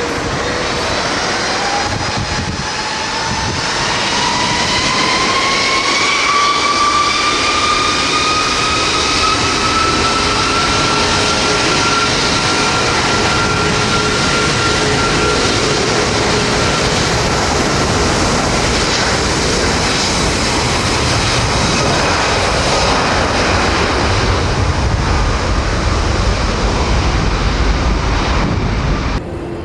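Jet airliner engines spooling up, typical of thrust being set for the takeoff roll. A whine rises in pitch over the first dozen seconds and then holds steady over a loud jet rumble, with the deep rumble growing near the end.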